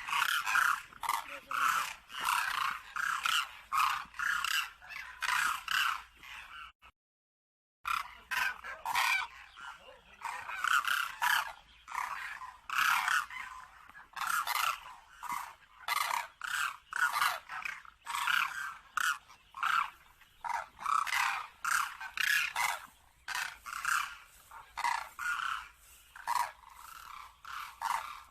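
Cranes (koonj) calling over and over in a dense run of loud, repeated calls, breaking off for about a second roughly seven seconds in.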